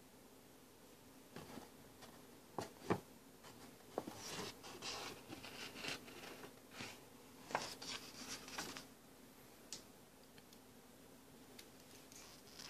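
Glossy magazine pages being handled and turned: a few sharp taps and knocks, then several seconds of paper rustling and sliding, dying away near the end.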